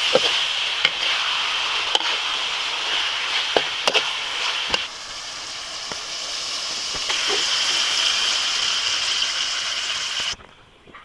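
Catfish frying in hot oil: a steady sizzle with scattered sharp pops. It softens about five seconds in, swells again, then cuts off suddenly near the end.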